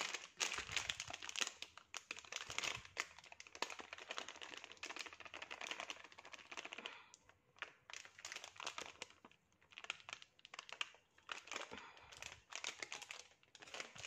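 Plastic spice-powder sachet crinkling as it is squeezed and shaken to pour the powder out: a quick run of dense crackles for about the first seven seconds, then sparser crinkles.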